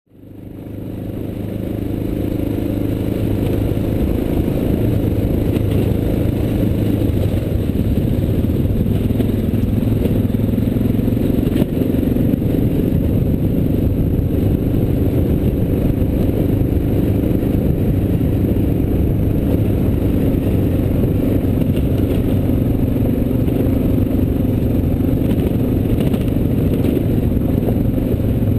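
Dual-sport motorcycle riding along a gravel trail: a steady engine drone with the crunch and rattle of tyres on gravel, fading in over the first couple of seconds.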